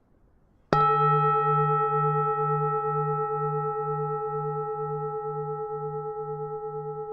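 Buddhist temple bell (chuông chùa) struck once about a second in, then ringing on and slowly fading, its deep hum pulsing about twice a second.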